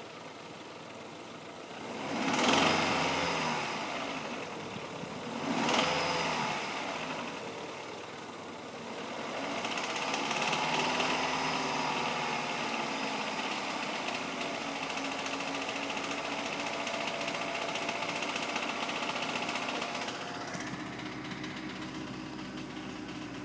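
Opel X18XE 1.8-litre 16-valve four-cylinder petrol engine idling, blipped twice in quick succession early on, then held at raised revs for about ten seconds before dropping back to idle. The engine is being run to show a knock.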